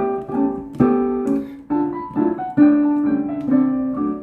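A piano playing a slow phrase of struck chords and notes, each one sounding and fading before the next.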